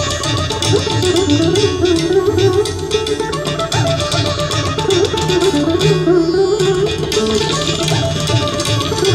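Carnatic music on the mandolin, its melody bending and wavering with gamaka ornaments, accompanied by steady hand strokes on a mridangam and a second hand drum.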